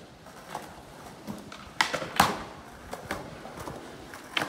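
Skateboard clacking on concrete: several sharp pops and slaps of the board and wheels hitting the ground, the loudest two close together about two seconds in.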